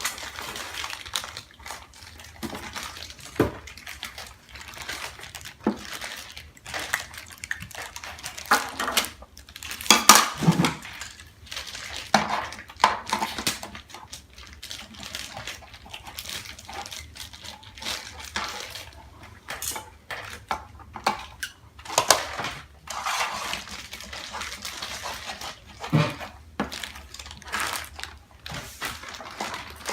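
A toy set's box being opened and its plastic pieces handled: irregular clicks, clatters and rustles of cardboard and plastic packaging.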